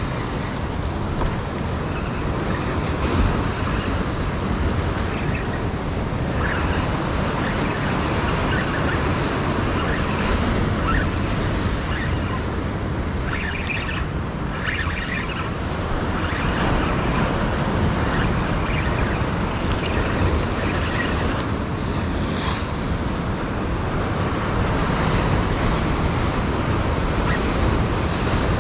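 Ocean surf breaking and washing over the rocks of a jetty, a steady rushing noise. A few short clicks sound around the middle and again about two-thirds of the way through.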